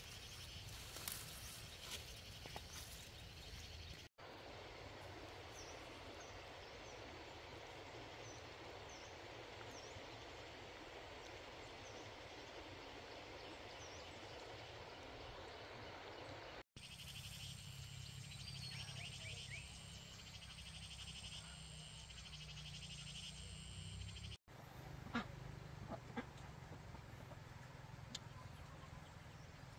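Several outdoor ambiences joined by cuts. First a few sharp snaps in tall grass, then a river flowing with birds chirping over it, then a steady pulsing high chirring over a low hum, and near the end a couple of sharp clicks.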